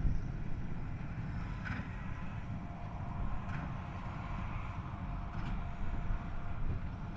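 Tractor and baler working: a steady low engine rumble, with faint regular knocks from the machinery about every two seconds.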